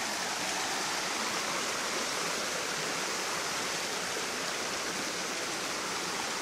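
Creek water rushing over rapids: a steady, even rush with no breaks.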